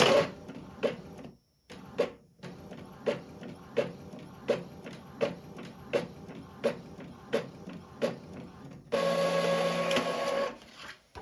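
Epson EcoTank L3211 inkjet printer printing a sheet of holographic self-adhesive vinyl: the print head carriage sweeps back and forth with a click about every 0.7 s, then a louder, steady motor whir near the end as the printed sheet feeds out.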